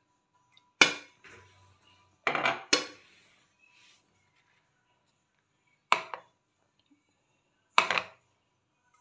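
Aluminium pressure cooker pot clanking against a gas stove's metal pan support as it is set down and shifted: about five sharp metallic knocks with a short ring, spread over several seconds.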